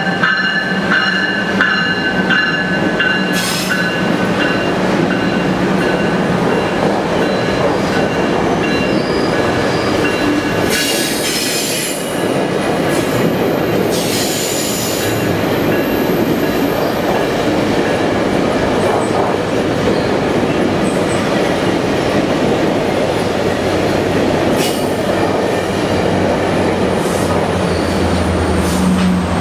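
GO Transit bilevel passenger coaches rolling past at close range: a steady loud rumble of steel wheels on rail, with high wheel squeal and brief screeches in the middle. Near the end the diesel locomotive pushing at the rear draws level, and its low engine drone comes in.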